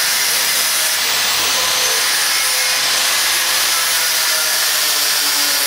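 Loud, steady hissing noise of metalwork being done on a bicycle, the shop work on its broken frame.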